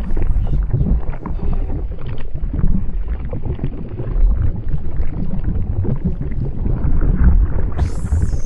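Deep, rough rumbling lava sound effect, steady and loud. A short hiss, like escaping steam, comes in near the end.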